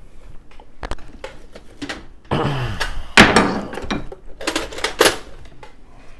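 Hard objects being handled: scattered clicks and knocks, with a loud rattling clatter in the middle and two sharp clunks, the louder about three seconds in.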